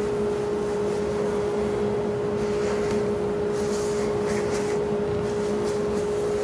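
Dust collector running with a steady whine while its wide hose sucks sawdust and chips out of a CNC-carved wooden board. From about two and a half seconds in, chips rattle through the hose in short bursts.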